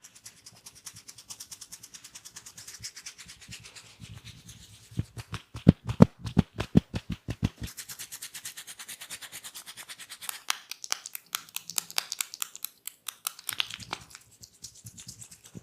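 Quick, rhythmic hand strokes of a barber's head and body massage, rubbing and tapping several times a second, with a louder run of deep strokes about five seconds in.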